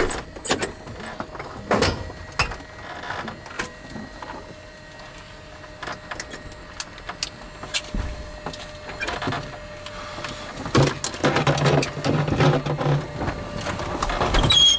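Clicks and knocks of switches and handling in a light single-engine plane's cockpit just after engine shutdown and switching off of the electrics, over a faint steady tone.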